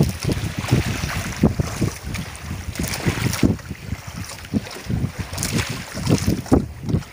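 Wind buffeting the microphone in uneven low gusts while out on the water in a boat.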